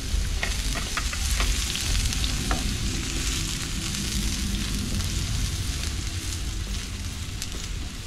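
Chopped onion and garlic sizzling in hot oil in a frying pan, stirred with a silicone spatula that taps and scrapes against the pan a few times in the first couple of seconds.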